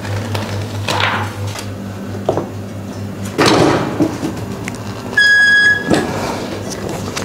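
A clamshell heat press's timer beeps once, a single high tone about half a second long marking the end of the pressing time, and the press is then lifted open with a short swish. Before it, rustling and scraping from handling the shirt and transfer, over a steady low hum.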